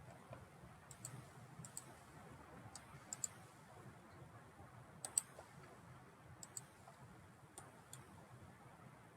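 Computer mouse buttons clicking, single clicks and quick double clicks every second or two, over a faint low hum.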